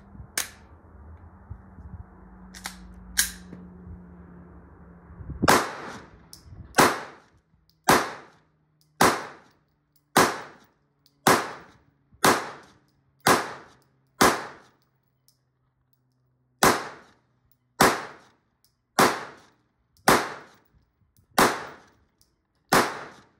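Glock 17 pistol firing Magtech steel-case 9mm Luger rounds: fifteen sharp shots at about one a second, with a short pause after the ninth, every round cycling. A few light clicks of the pistol being handled come before the first shot.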